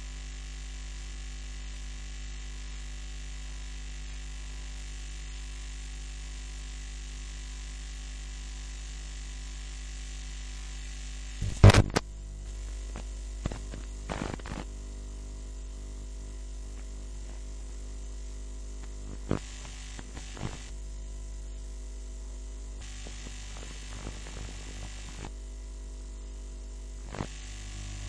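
Steady low electrical mains hum with faint hiss, broken by a few short knocks, the loudest cluster about twelve seconds in.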